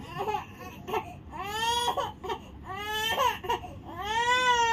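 Infant crying in three short wails, each rising and then falling in pitch, the last the longest and loudest near the end. She is fussing as she is being dressed.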